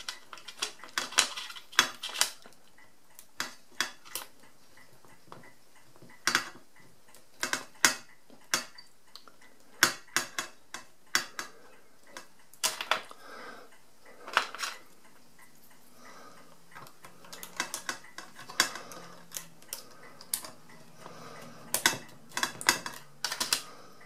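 Irregular small metallic clicks and clinks as calculator pinwheels are worked one at a time onto a shaft and handled on a metal tray. The clicks come singly and in quick little clusters.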